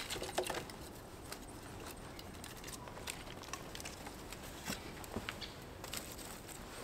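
Scattered light footsteps and the small clicks and knocks of thin sticks being handled and laid onto a pyramid of kindling.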